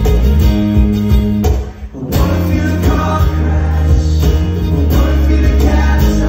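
Live band music: strummed acoustic guitar and electric bass with a male voice singing. The music drops out briefly about two seconds in, then comes straight back in.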